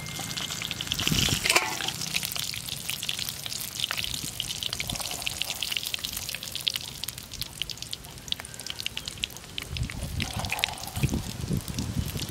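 Hot cooking oil sizzling and spitting in a pan over a charcoal fire, a dense patter of small crackles, with a few soft low thumps near the end.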